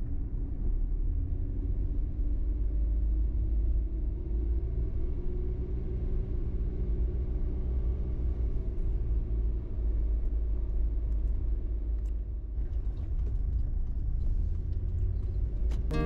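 An engine running steadily with a deep rumble.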